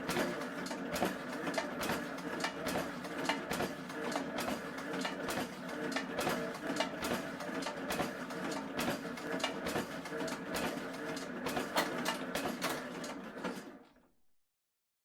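Printing machinery running: rapid, irregular clicking over a steady hum. It fades out near the end.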